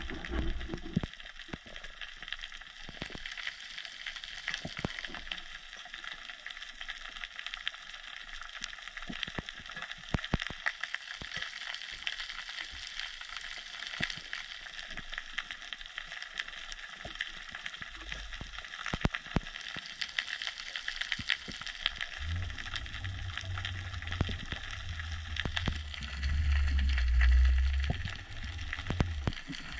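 Underwater ambience of dense, irregular crackling from snapping shrimp on a rocky seabed. A low rumble comes in about two-thirds of the way through and swells near the end.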